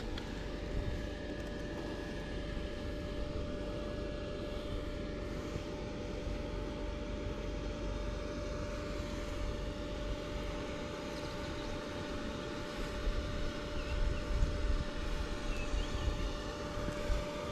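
Steady machine drone with a constant hum and a low rumble, like a distant motor running.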